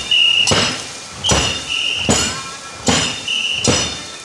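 Snake boat crew rowing in unison to a steady beat: a sharp stroke a little under a second apart, five or six times, each with a short shrill tone on top.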